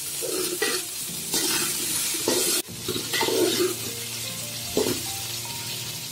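Cauliflower florets frying in oil in a metal pan, sizzling, while a metal spatula stirs them and scrapes against the pan several times.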